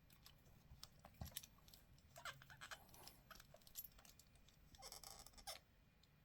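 Near silence with a few faint clicks and a short scrape of the new power socket and its wires being handled.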